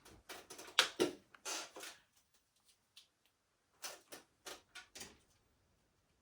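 Clicks and knocks of a plastic smoke alarm being handled after a new battery is fitted. A cluster of clicks comes in the first two seconds, the loudest about a second in, then a few lighter clicks around four to five seconds.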